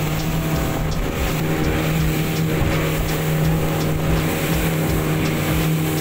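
Motorboat engine running steadily at cruising speed, a constant low hum, with water and wind rushing past the boat.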